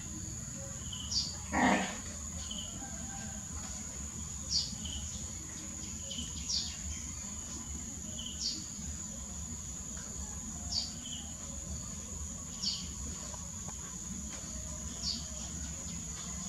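Insects drone steadily at a high pitch, while a bird repeats a short falling chirp about every two seconds. A brief, louder sound comes about two seconds in.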